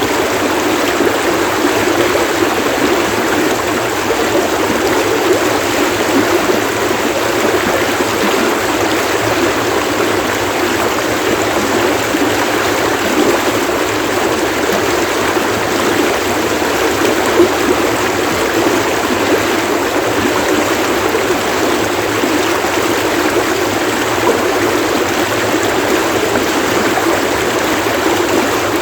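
Flowing stream water splashing steadily, an even, unbroken wash of sound.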